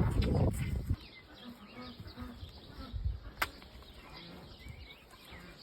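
Farmyard sounds: a loud low rumbling noise for about the first second, then faint short bird calls and a single sharp click about three and a half seconds in.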